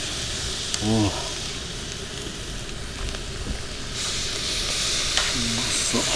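Salt-koji-marinated salmon sizzling on a wire grill grate over charcoal, the sizzle growing louder about four seconds in as a second piece goes onto the grate. A few light clicks of metal tongs on the grate.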